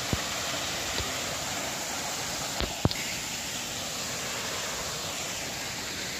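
Steady rushing of a small waterfall spilling into a rock pool, with a few sharp clicks, the loudest just under three seconds in.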